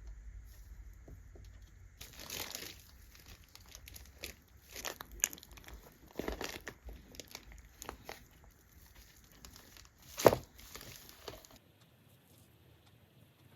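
Crinkling and rustling of something being handled, with scattered small clicks and one sharp knock about ten seconds in. The sound cuts off abruptly near the end, leaving quiet room tone.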